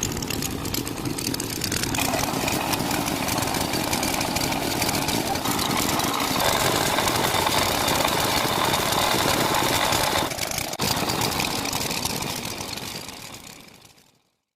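JCB 3DX backhoe loader's diesel engine running steadily; its note shifts about two seconds in and again around six seconds, dips briefly, then fades out near the end.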